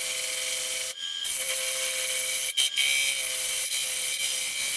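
Steel gouge cutting into the inside of a large, very hard, kiln-dried pecan bowl spinning on a wood lathe: a steady hissing cut that lifts off briefly about a second in, with short breaks later.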